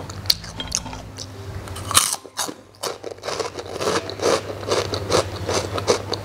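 Crunching bites and chewing of crispy deep-fried pork skin (chicharrón). A loud crunch comes about two seconds in, followed by steady crunchy chewing at about two to three crunches a second.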